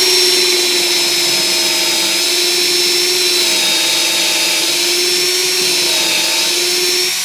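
RIDGID 18V X4 compact cordless drill running at high speed (transmission setting 2), boring a pocket hole through a jig into a pine 2x4. The motor whines steadily and sags slightly in pitch a few times under load, then cuts off at the end.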